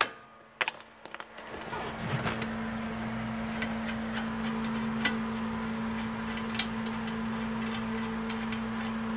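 A hammer strikes the axle nut threaded onto the end of the CV axle once, tapping the axle in to free it from the wheel hub, followed by a few light metallic clicks. After that a steady low hum with a constant pitch sets in and runs on.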